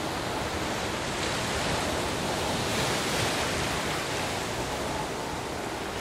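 Sea waves breaking as a steady rush of surf, swelling a little about halfway through.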